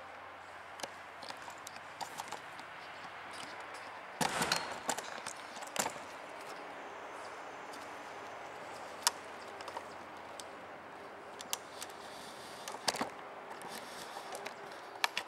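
Steady hiss of indoor room noise with scattered sharp clicks and knocks, a short cluster of them about four seconds in.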